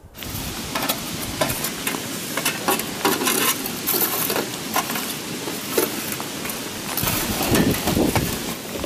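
Metal shovels scraping and clinking against hot coals and stones in a stacked-stone camp heater, with the embers crackling as they are raked out from under the heated stones. The result is a dense run of scrapes and clicks.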